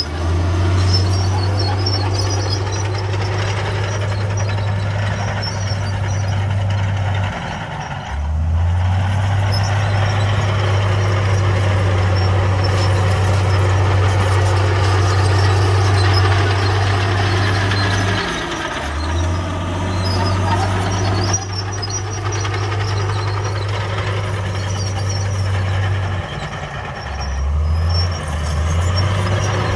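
Heavy diesel construction machinery running under load, a bulldozer and dump trucks working. The steady low engine note briefly drops and picks up again about three times, over continuous mechanical clatter and noise.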